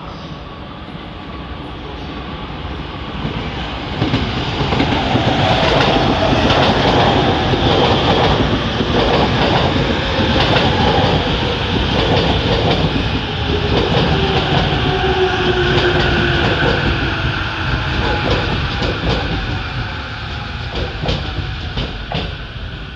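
JR East E231-series electric commuter train running along the platform track, its traction motors whining in gliding pitches over the clatter of wheels on the rails. It grows loud over the first few seconds and eases near the end.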